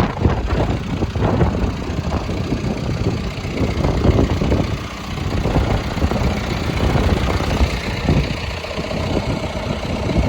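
John Deere 310SK backhoe loader's diesel engine idling, with irregular knocks and rumbles close to the microphone. A steady hum joins in near the end.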